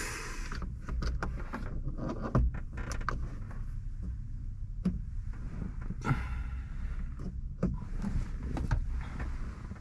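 Scattered small clicks, taps and scrapes of the metal reflector, the LED bulb and the plastic dome light housing being handled and pushed into place, over a low rumble.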